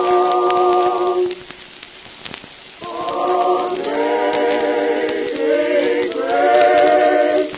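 Singing voice holding long notes with vibrato, in two phrases with a break of about a second and a half between them, over a faint steady hiss like rain.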